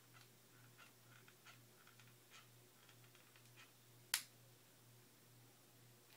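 Faint clicking from a hot glue gun's trigger as it feeds glue into a shotgun shell, with one sharp click about four seconds in, over a faint low hum.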